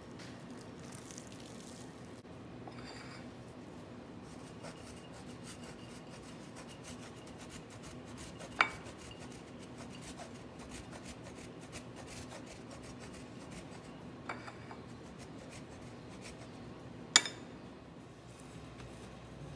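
A wedge of Parmesan cheese rasped on a flat metal hand grater, a low, steady scratchy rubbing. Two sharp clinks stand out, one about halfway through and one near the end.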